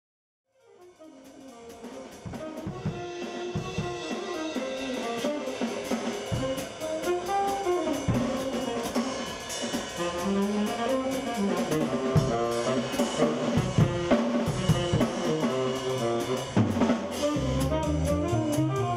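Instrumental jazz music with a drum kit, fading in over the first couple of seconds.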